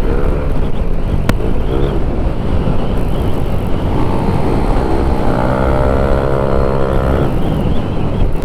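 Motorcycle engine running under way at riding speed, over a steady low rumble, its pitch rising and falling a few times and then holding steady for a couple of seconds.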